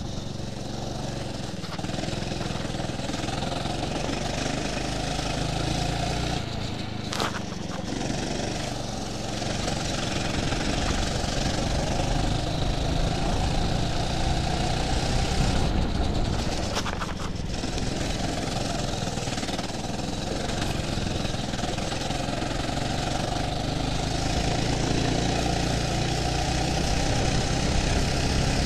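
Go-kart engine running under the driver, its pitch rising and falling as the kart speeds up and slows for corners, over a steady rushing noise. Two brief sharp knocks stand out, about a third of the way in and again past the middle.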